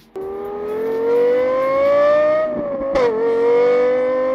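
Car engine revving hard, a sound effect under an intro: the pitch climbs steadily, falls back with a short sharp click about three seconds in, as at a gear change, then climbs again.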